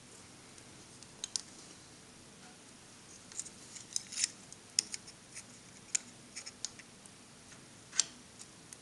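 Scattered sharp clicks and light taps of small cast-aluminium parts, a steel rule and digital calipers being handled and set against each other on a steel bench top, most of them about four to six seconds in and one louder click about eight seconds in.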